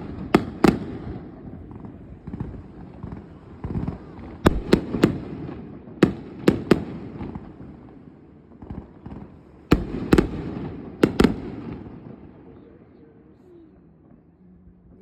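Aerial fireworks bursting in quick clusters of two or three sharp bangs a few seconds apart, each followed by a rolling rumble. The bangs die away over the last few seconds.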